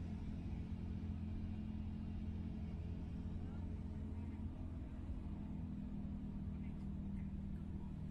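Steady low drone of engine and tyre noise heard inside a car's cabin while driving along at an even speed.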